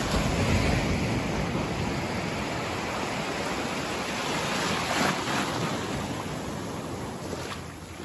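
Small waves breaking and washing up the beach in shallow surf, swelling loudest at the start and again about five seconds in.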